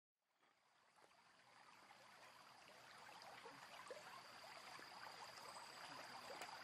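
Near silence: a faint crackling hiss slowly fades in, with a thin steady high tone running through it.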